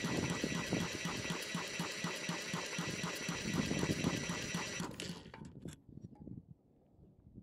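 Cordless drill spinning a Honda GX big-block engine over by its flywheel nut: a steady motor whine with a rhythmic chug of about five pulses a second, cutting off suddenly about five seconds in, followed by a few light clicks. The engine is being cranked to check for spark and does not fire; no spark shows with the original plug.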